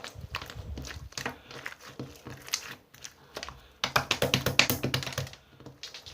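Slime being squished and poked by hand, giving a string of sticky clicks and pops, quickest in a rapid run about four seconds in.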